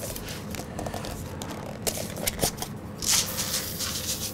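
Dry arborio rice grains pouring from a small bowl into a non-stick pan, a light rustling patter with scattered small clicks that thickens into a louder hiss about three seconds in.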